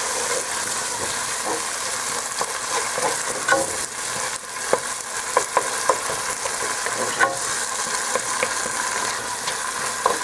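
Chopped tomatoes frying in oil in a pot, sizzling steadily, while a wooden spoon stirs and mashes them, with scattered clicks of the spoon against the pot.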